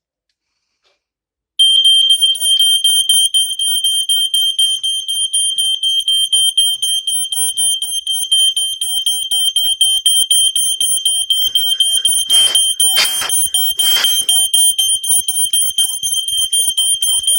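A vintage Lifesaver smoke alarm going off, set off by smoke in a smoke test with its cover on: a loud, continuous, high-pitched alarm tone that starts about a second and a half in. Three brief rushing noises come near the end.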